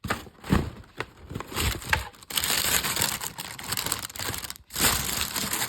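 Rustling and crinkling with scattered sharp crackles, in several uneven stretches, like something being handled close to the microphone.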